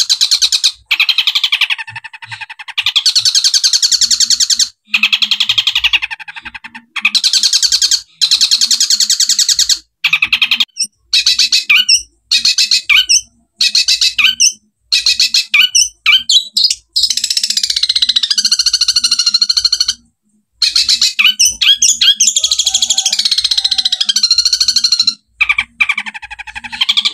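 Long-tailed shrike (cendet) singing loudly: rapid, dense chattering bursts in the 'tembakan' style, with house-sparrow (gereja) mimicry, broken by short pauses. A few falling whistled glides come about two-thirds of the way through.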